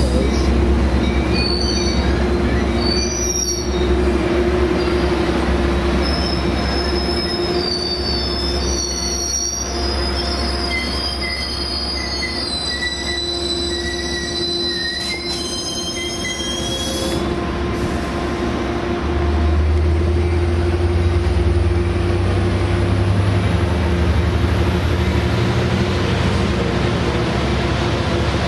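A train rolling past with its wheels squealing on the rails: thin, wavering high squeals over a steady low rumble for the first half, then the squealing stops and the rumble grows louder.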